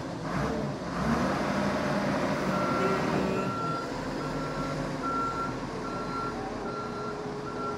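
Large forklift's engine running under load as it pushes wrapped lumber bundles into a shipping container. From about two and a half seconds in, its reversing alarm beeps steadily, a little faster than once a second: the forklift is backing up.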